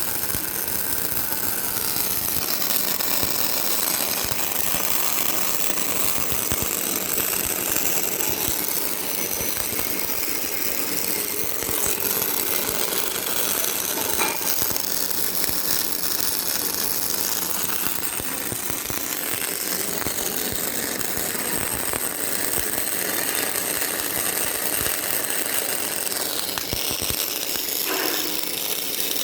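Boiler water-wall panel automatic welding machine running: a steady, dense mechanical clatter and crackle with frequent sharp clicks.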